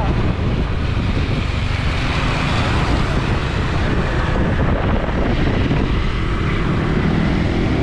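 Wind rushing over the microphone of a moving motor scooter, with the scooter's engine and road noise running steadily underneath.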